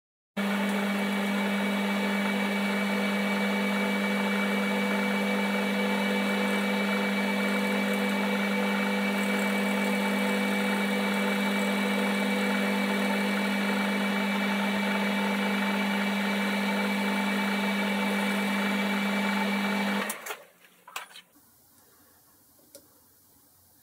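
Metal lathe running steadily with a hum and whine, its four-jaw chuck spinning while a tool trues up the outside of a nylon split bush. The lathe stops about twenty seconds in, leaving only a few light clicks.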